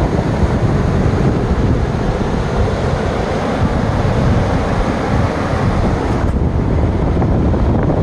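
Wind buffeting the microphone over the steady wash of surf breaking on the shore.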